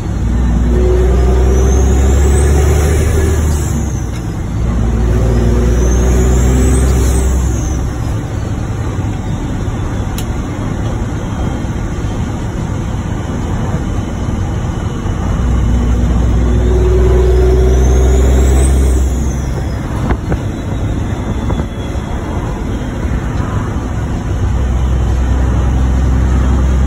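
Emissions-deleted, tuned Cummins ISX inline-six diesel of a Peterbilt 388, heard from the cab pulling under load in four long swells with lighter spells between. A high whistle rises and falls with three of the pulls.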